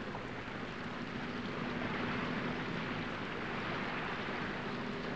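A boat under way: a steady hiss of water wash along the hull, with a faint low engine hum that comes in about a second in.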